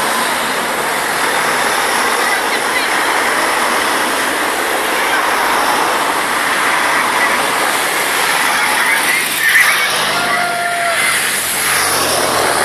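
Team cars with bicycles on their roof racks driving past in a slow convoy: a steady rush of tyre and engine noise. A brief steady tone sounds about ten seconds in.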